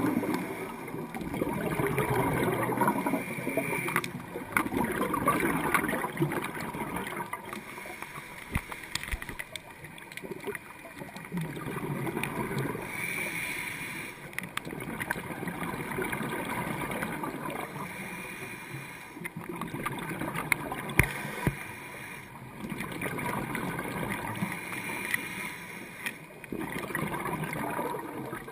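Scuba regulator exhaust bubbles heard underwater, rushing and gurgling in repeated bursts a few seconds apart.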